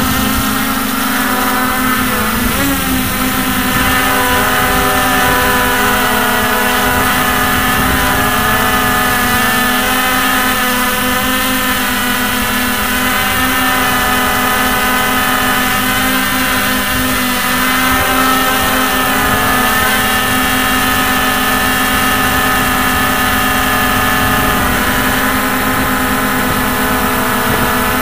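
Hubsan X4 H501S quadcopter's brushless motors and propellers whining steadily in flight, a dense buzzing drone whose pitch wavers slightly as the throttle shifts.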